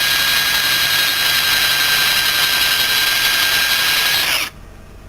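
Power drill running at a steady speed, boring a homemade twisted-steel drill bit into hardwood. Near the end its whine falls and it stops suddenly.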